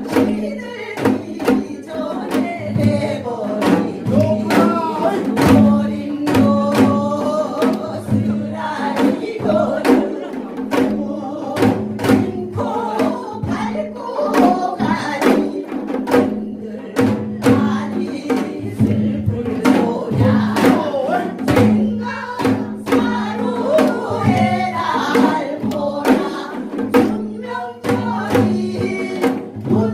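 Group singing a song over backing music, with a steady beat of janggu drum strikes about twice a second.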